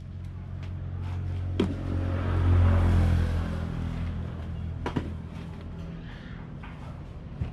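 Small two-stroke grass-cutter engine running after repair, swelling louder about two seconds in and easing back down, with a couple of sharp clicks.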